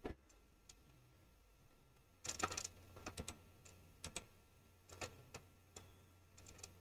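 Faint, scattered clicks of a computer mouse: single clicks and short quick runs of two to four, with a busier cluster a couple of seconds in.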